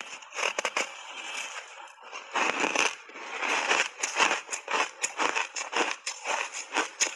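Crunching and crackling of a block of ice coated in matcha powder being bitten and chewed, close to the microphone: a dense run of sharp cracks, louder from about two and a half seconds in.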